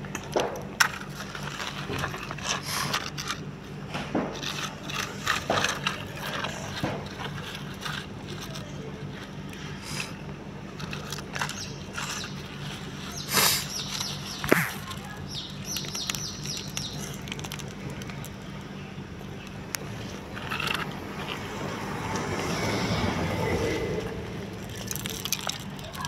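Gravel, grit and soil being scraped up and handled by hand: scattered small clicks and gritty scrapes of pebbles, some dropping onto a plastic toy trailer, over a steady low hum. Two sharper knocks come a little past the middle.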